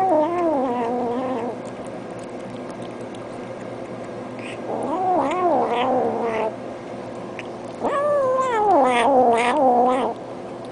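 A hungry domestic cat giving three long, drawn-out yowls of about two seconds each, the pitch wavering up and down within each call.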